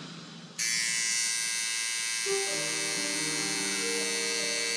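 Dragonfly rotary tattoo machine with its needle working into skin. It is off briefly at first, then switches back on about half a second in and runs with a steady buzz.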